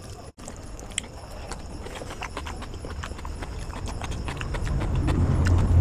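Close-miked eating: fingers working biryani rice and chicken on a plate, and chewing, heard as a stream of small irregular wet clicks and smacks. A low rumble grows louder over the last second or so.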